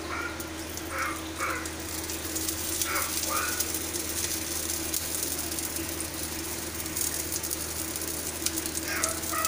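Dosa batter sizzling and crackling on a hot tawa as oil is dabbed around it, over a steady low hum. A few short squeaks come in the first three or four seconds.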